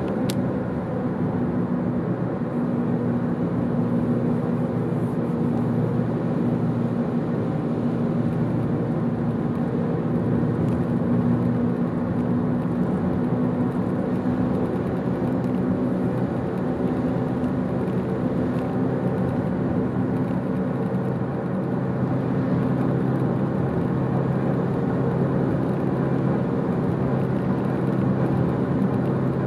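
Steady road noise from a car driving at constant speed: low engine hum and tyre rumble that stay even throughout.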